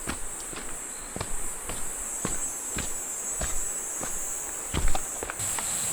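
A hiker's footsteps climbing a stepped mountain trail, about two steps a second, the heaviest near the end, under a steady high-pitched insect drone.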